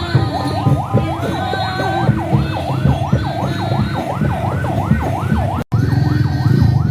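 Electronic siren in fast yelp mode, its pitch rising and falling about three times a second over a loud low rumble. It cuts out for an instant near the end, then carries on.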